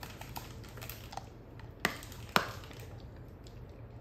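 A wolfdog crunching a hard stick-shaped dog chew with its teeth: scattered light clicks, then two sharp cracks about half a second apart, about two seconds in. The treat is very hard and snaps as it is bitten.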